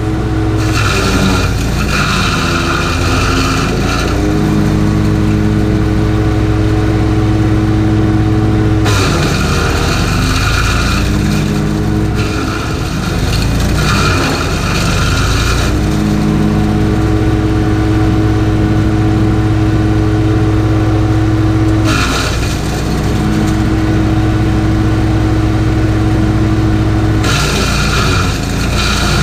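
Wood chipper powered by a Honda GX390 single-cylinder four-stroke engine, running hard while leafy branches are fed in and chipped. The engine note sags and wavers several times under the load, with rough noise from the wood being shredded.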